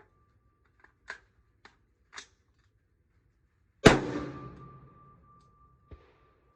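A single rifle shot about four seconds in, ringing out and fading over a second or so, after a few light clicks of the rifle being handled.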